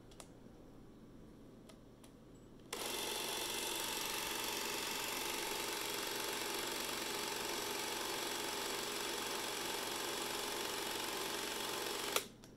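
Canon DS-8 Super 8 film camera running: its drive mechanism starts abruptly about three seconds in and runs with a steady, even whir for about nine seconds, then stops with a click near the end.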